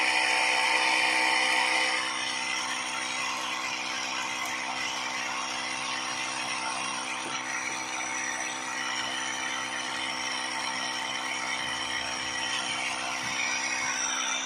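Small electric motor of a DIY toy tractor running steadily, turning a mini flour mill through a drive shaft as it grinds grain into flour. It drops slightly in level about two seconds in.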